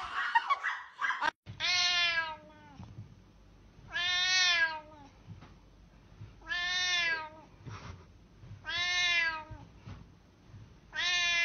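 A cat meowing over and over: long, drawn-out meows about every two and a half seconds, four in a row and a fifth starting near the end.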